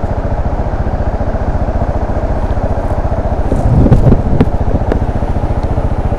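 Yamaha Serow 250's single-cylinder four-stroke engine running steadily with an even, fast pulse while the bike is ridden. About three and a half seconds in comes a louder, rougher second or so with a few sharp clicks.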